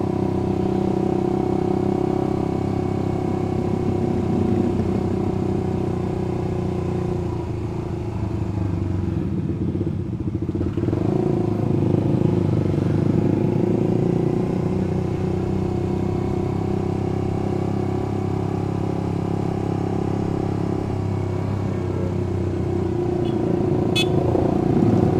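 Suzuki GSX-R150 single-cylinder engine running steadily at low road speed, heard from the rider's seat, with other motorcycles and scooters riding close alongside.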